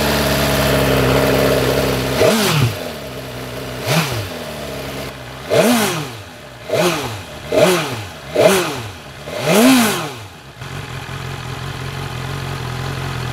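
BMW S1000R's 999 cc inline-four engine idling, then revved with about seven quick throttle blips, each spinning up and dropping straight back, before settling to a steady idle near the end.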